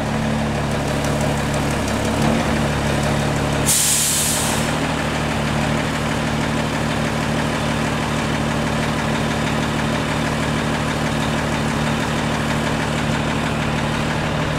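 Heavy diesel engine of a Bronto Skylift F52 HDT aerial platform fire truck running steadily at low revs while it manoeuvres slowly, with a short burst of air-brake hiss about four seconds in.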